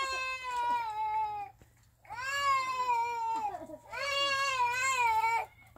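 Three long, high wailing cries, each about one and a half to two seconds, the pitch held level and dropping slightly at the end of each.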